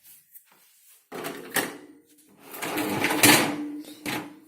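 Hotpoint dishwasher's rack sliding on its rails and the load rattling as the dishwasher is unloaded. There are two clattering stretches, the second and longer one about a second and a half long.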